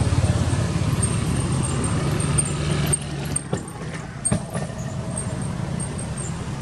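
Low, steady rumble of a motor vehicle's engine that fades about three seconds in, with a couple of faint knocks after it.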